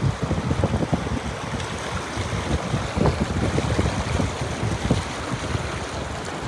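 Mountain stream rushing over rocks, a steady roar of water, with irregular low buffeting on the microphone.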